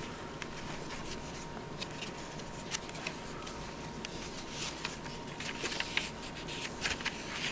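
Paper pages and card inserts of a scrapbooking daybook being handled and turned: soft rustles and light ticks, busier in the second half.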